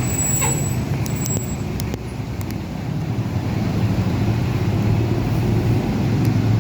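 A road vehicle's engine running with a steady low drone, with a few faint clicks over it.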